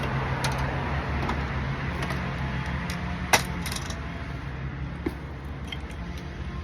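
Small pliers working the control knobs off a window air conditioner: scattered small clicks and clinks, with one sharp click about three seconds in, over a steady low hum.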